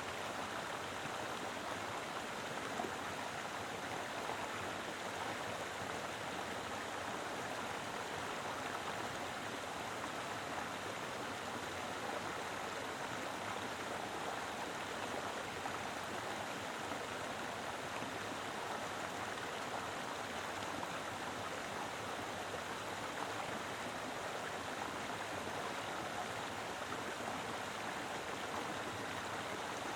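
Mountain river flowing steadily over rocks: a full, even rush of water with no breaks.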